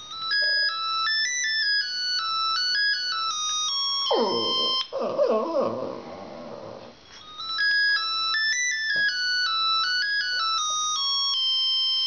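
A mobile phone ringtone plays a fast electronic melody of stepping beeps. About four seconds in it breaks off, and a Lhasa Apso sings along for a few seconds in a wavering, whining howl. The ringtone melody then starts again.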